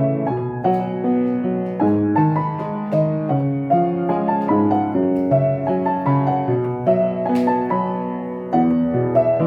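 Solo piano music, a gentle melody played as a steady flow of notes.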